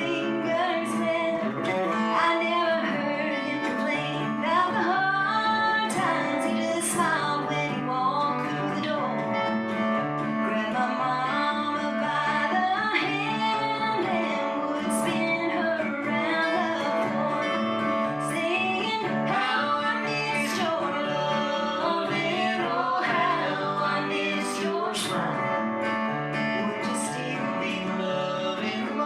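Live country song: a woman singing over acoustic guitar.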